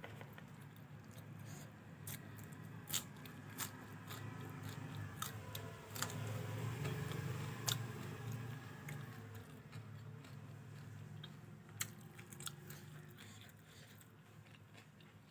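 Close-up chewing and mouth sounds of someone eating fried rice, with scattered sharp clicks and a louder stretch of chewing a little past the middle. A low steady hum runs underneath.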